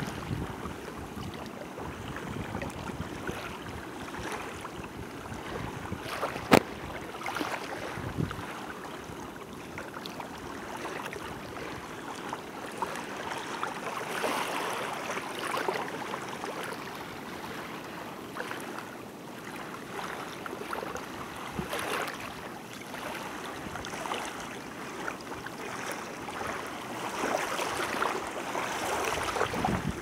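Small waves on open water lapping and splashing, a steady wash that swells and eases. A single sharp click about six and a half seconds in is the loudest sound.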